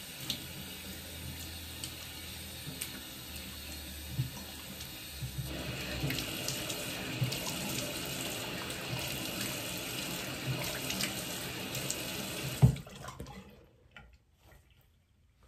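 Bathroom sink tap running while water is splashed onto the face to rinse off a face scrub, with small splashes through it. The water gets louder about five seconds in, and near the end it stops with a sharp knock.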